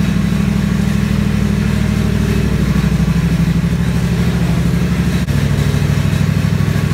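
Husqvarna zero-turn riding mower's engine running loud and steady while the mower is driven slowly, its note changing about five seconds in.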